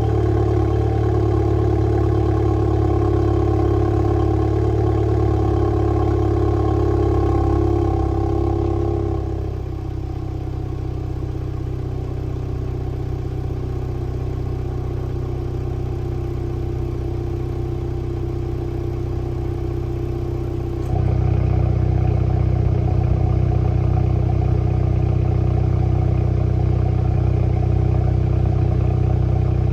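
Volkswagen Golf R Mk7.5's turbocharged 2.0-litre four-cylinder idling through an Akrapovič exhaust with the resonator deleted. It begins on the raised cold-start idle with the exhaust valves closed and drops quieter to normal idle about nine seconds in. About twenty seconds in it gets louder and deeper as the exhaust valves open.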